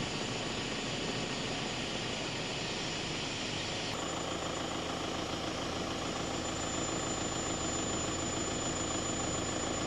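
A steady rushing noise, then, after an abrupt change about four seconds in, an engine idling with a steady low hum and a thin high whine.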